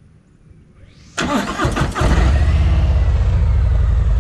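Harley-Davidson V-twin cranked by its electric starter about a second in. It catches within a second and settles into a loud, steady idle through Rinehart true dual exhaust pipes.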